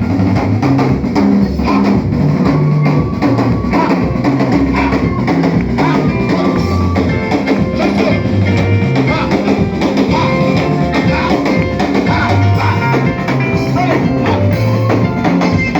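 Live church band playing an upbeat instrumental dance groove on drum kit, bass and electric guitar.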